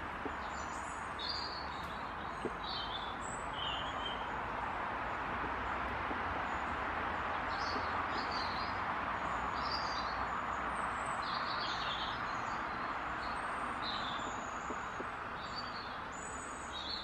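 Steady noise of road traffic on a main road, swelling a little around the middle, with small birds chirping over it in short calls.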